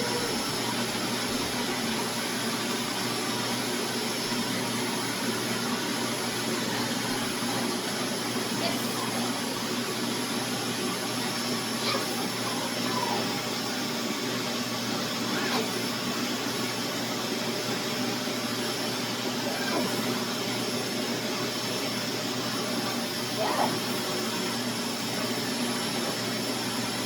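Vacuum cleaner running steadily: a constant motor drone with a steady high whine.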